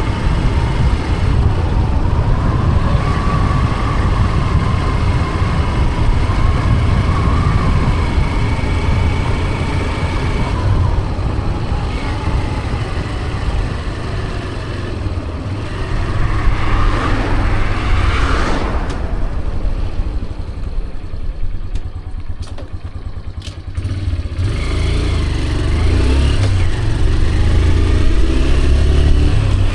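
Motor vehicle running on the road, heard from on board: a steady low rumble with a whine that wavers in pitch. There is a louder rise and fall about two-thirds of the way through.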